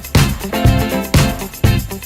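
Background music with a steady dance beat, about two beats a second, over sustained chords.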